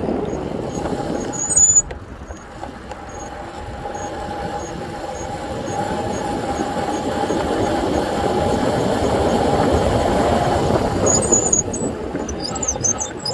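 Electric motor of a Razor 750 W e-bike whining with a steady tone over a rumble of riding noise, growing louder for several seconds as the bike speeds up. Short high squeals come about two seconds in and again near the end.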